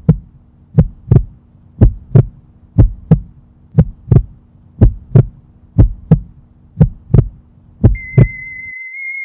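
Heartbeat sound effect: paired low thumps, about one beat a second, over a steady low hum. Near the end the beats stop and a high, held synthesizer tone comes in.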